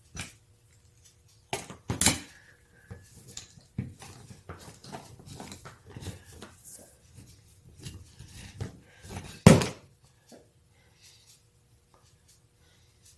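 Metal parts of an antique hand-operated drill press knocking and clinking as they are handled and taken apart, with two louder clanks, about two seconds in and near the middle-to-end.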